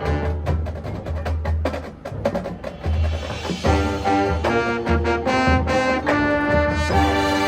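High school marching band playing live: rapid drum and percussion strokes, then the brass section comes in with sustained chords about halfway through.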